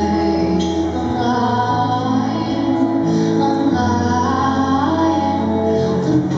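Music with a woman singing over an instrumental accompaniment.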